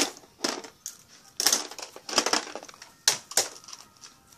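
Rustling and clattering of small puzzle pieces being handled and gathered up, in a run of short, irregular scratchy bursts.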